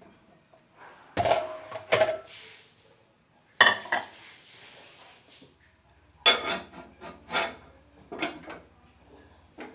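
Dishes and kitchenware being handled: plates and a metal pot lid clattering, about seven separate knocks, some with a short ring, the loudest about three and a half seconds in.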